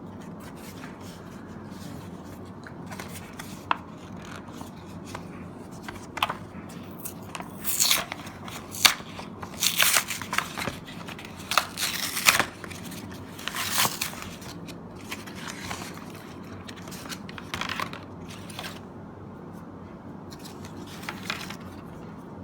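A Pokémon card pack's wrapper being torn open and crinkled by hand: a cluster of short tearing and rustling sounds in the middle, with a few fainter rustles later, over a low steady hum.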